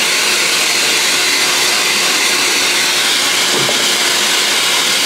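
Handheld hair dryer blowing steadily and loudly close by, blow-drying wet hair.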